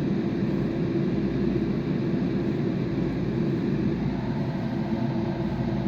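Steady hum and fan whir of a Powerjack 8000 W inverter charger running under a 1500 W space heater load.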